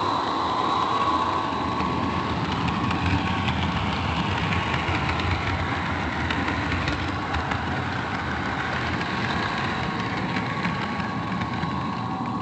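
HO scale model train running along its track, heard from aboard the train: the cars' wheels rolling on the rails with a steady whine and a stream of light clicks.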